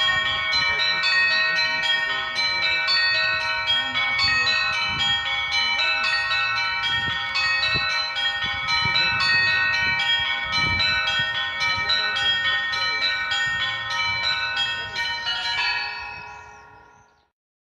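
Russian monastery bell ringing (zvon): small bells struck in quick, repeating figures over the sustained ringing of larger bells. The ringing fades out near the end.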